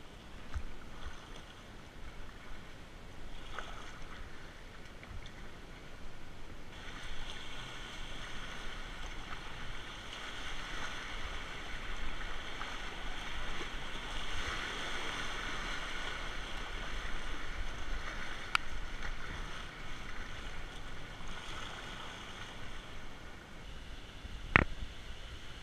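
Paddle splashes in calm river water, then the steady rush of a whitewater rapid around a kayak from about a quarter of the way in, easing off near the end, with one sharp knock just before the end.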